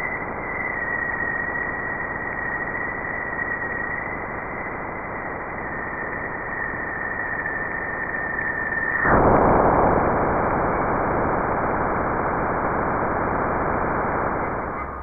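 NASA spacecraft radio and plasma-wave data turned into sound: a steady hiss with a thin high tone held over it for about nine seconds, after which the tone drops out and the hiss grows louder.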